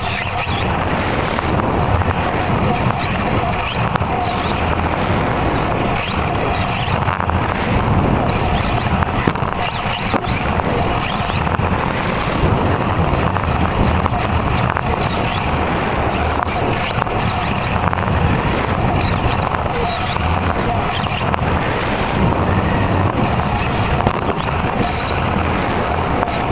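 Radio-controlled touring car heard from a camera mounted on it as it laps a carpet track: a continuous drivetrain whine and tyre rush, with many short whines rising and falling in pitch as the cars speed up and slow for corners.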